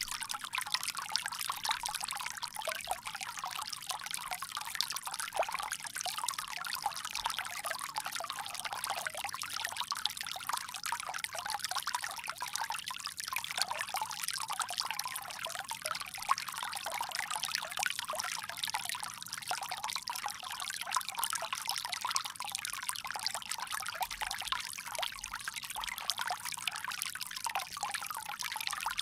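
Water pouring steadily from a bamboo spout, an unbroken trickling splash.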